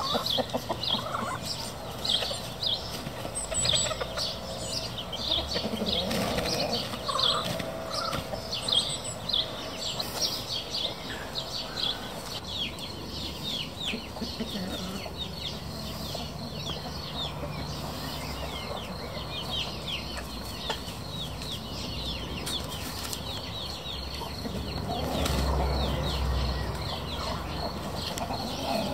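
Marans chickens, a rooster and his hens, clucking softly as they forage, the low clucks coming mostly in the first third. Over them, small birds chirp fast and high throughout, several short falling chirps a second.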